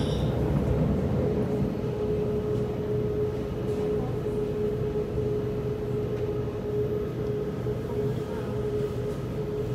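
Kawasaki C751B metro train heard from inside the carriage, running between stations: an even rumble of wheels on track with a steady whine that holds one pitch.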